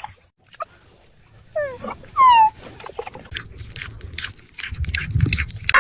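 A dog whimpering: two short, high whines that fall in pitch, about one and a half and two seconds in. Scattered clicks and knocks follow.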